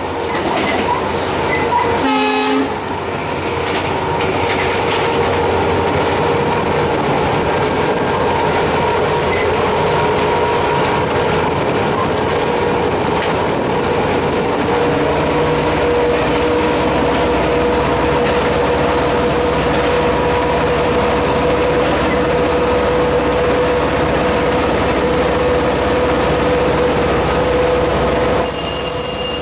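Cab interior of an EMD GT46PAC (WDP4B) diesel-electric locomotive running at about 80 km/h: the 16-cylinder 710 diesel engine and the wheels on the rails make a steady rumble with a steady whine over it. A short horn blast sounds about two seconds in.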